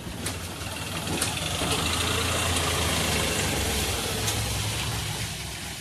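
A motor vehicle engine running, growing louder over the first two seconds, holding, then fading toward the end.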